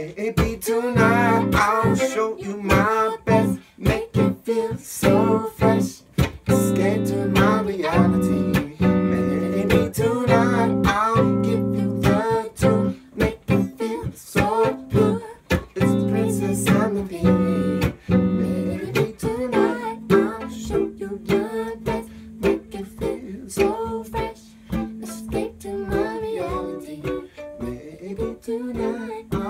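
A duo of electric guitar and violin playing a song together, with singing over the guitar strumming. Wavering high melody lines run through the first two-thirds, and from about two-thirds in a long low note is held under the rest.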